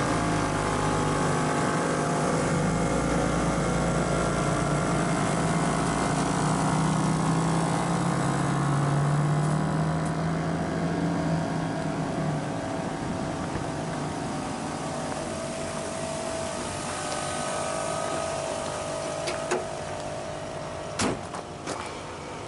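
Steady motor drone with several held pitches, swelling a little about eight to ten seconds in and easing off after about twelve seconds; a few sharp clicks near the end.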